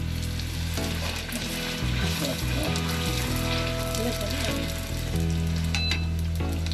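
Small semolina pooris deep-frying in hot oil: a steady sizzle with dense crackling and popping as they puff up.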